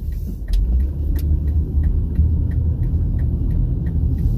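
Road and engine rumble inside a moving car's cabin, with a light, even ticking about three times a second.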